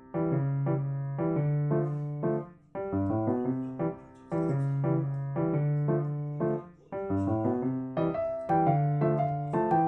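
Background piano music: a melody over repeated low notes, played in short phrases with brief pauses between them.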